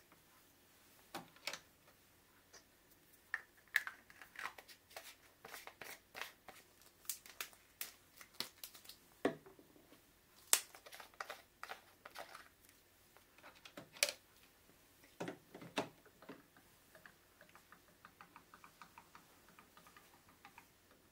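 Faint clicks, taps and knocks of plastic Epson 114 ink bottles being handled, set down on a desk and pushed into an EcoTank printer's fill ports. Near the end a run of small, evenly spaced ticks, about three or four a second.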